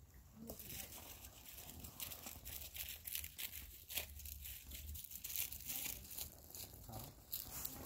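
Camouflage fabric of a collapsed pop-up hunting blind rustling and crinkling in many short, irregular strokes as it is pulled and pushed back up by hand.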